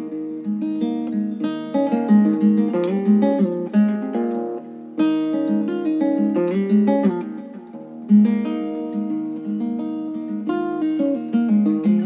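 Background music on acoustic guitar, plucked notes with some strumming.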